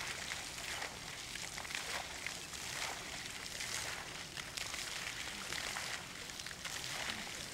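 Quiet outdoor background: a steady even hiss with faint scattered crackles, and no clear single source.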